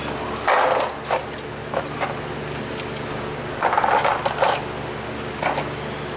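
Small metal engine parts and bolts clinking and rattling as they are handled and dropped into a small cardboard parts box, in short bursts with the longest rattle around four seconds in, over a steady low hum.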